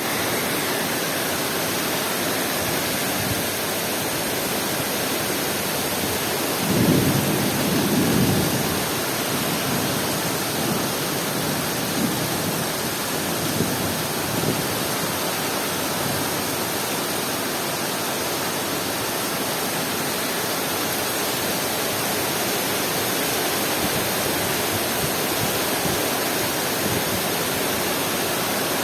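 Heavy rain pouring steadily, with a louder low rumble for about two seconds some seven seconds in and a few faint low knocks later.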